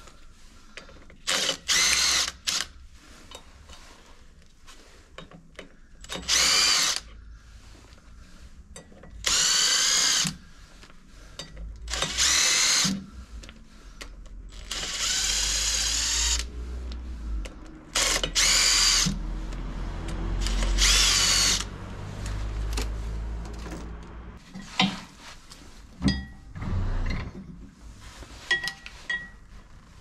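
A cordless power driver unscrews the flywheel bolts on a tractor engine in about nine short bursts, its motor whine rising and falling with the trigger. Small metal clinks from handling bolts and tools come between the bursts.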